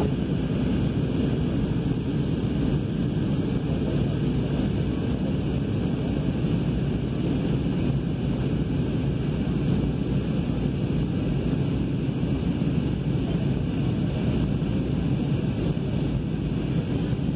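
Steady cabin noise of a jet airliner in flight: an even, low rush of airflow and engine sound heard from inside the cabin.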